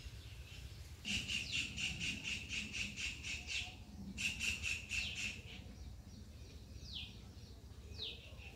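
Birds calling: a fast run of repeated high chirps, about four a second, for some two and a half seconds, a shorter run soon after, then two quick downward-sliding whistles near the end.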